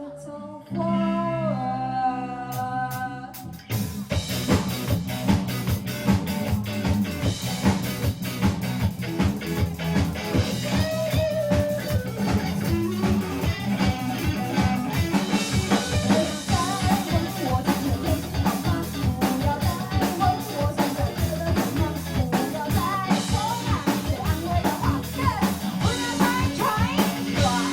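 Rock band with a singer: a sung line with held notes over guitar and bass, then drums and the full band come in about four seconds in, with the singing going on over a steady beat.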